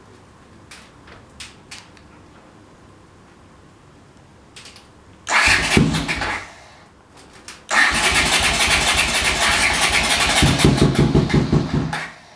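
Honda CX500 V-twin electric start on choke after about five months unused: a few switch clicks, a short first try about five seconds in, then a second go catches and the engine runs for about four seconds before stopping. The starter turns it over strongly, so the battery still holds plenty of charge.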